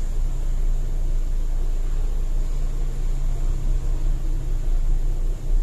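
A steady low hum with no clear events in it.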